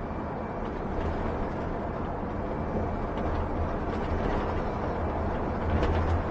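Steady road noise and low drone inside the cab of a Tiffin Allegro Bus motorhome cruising at highway speed, with a few faint clicks.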